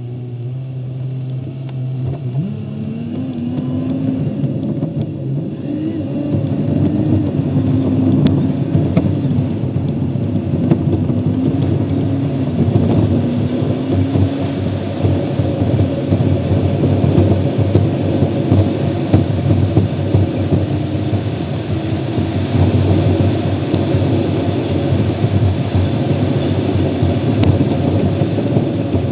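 Car engine idling, then pulling away and running under way from about two seconds in, its note rising and falling, over a loud steady rush of road and wind noise at the front grille.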